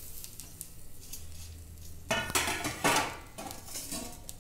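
Metal utensils clinking and scraping against a metal cooking pot: faint light clicks at first, then a few louder, ringing scrapes and clatters from about halfway through.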